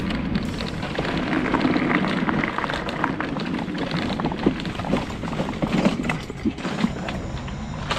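Mobility scooter riding over gravel and then a concrete footpath: a steady rolling rumble, with a string of knocks and rattles from bumps about halfway through.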